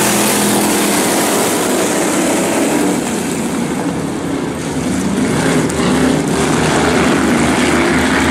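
A pack of pure stock dirt-track race cars running hard around the oval, a loud continuous engine drone. It eases a little around four seconds in and builds again as the cars come back around.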